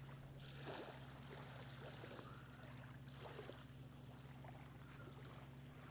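Near silence: faint outdoor ambience with a steady low hum and a few faint ticks.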